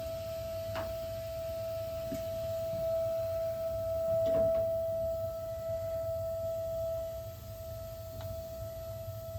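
Gas water heater whining: one steady high-pitched tone over a low rumble, a little louder in the middle and softer near the end. The whine sounds only while the burner is lit, stops as soon as the burner is shut off, and does not change when pressure is let off the line.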